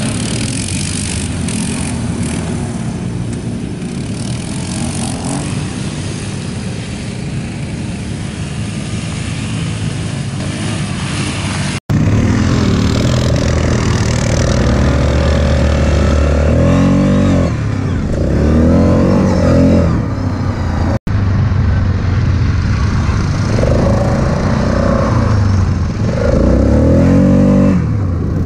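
ATV engines. For the first twelve seconds, a quad is churning through a mud hole under steady throttle amid a dense noisy wash. After a sudden cut, an onboard ATV engine revs repeatedly, its pitch rising and falling as the rider accelerates and lets off on sandy trails.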